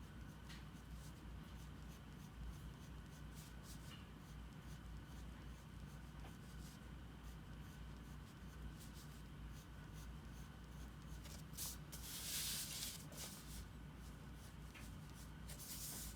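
Faint scratching of a drawing tool on paper, short strokes, with a longer, louder stretch of scratching about twelve seconds in, over a low steady hum.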